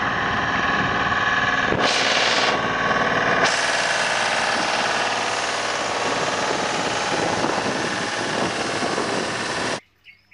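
Water tanker truck running while its rear spray heads blast water onto the pavement, a steady loud rush of spray over the engine. The sound shifts twice in the first few seconds and cuts off suddenly near the end.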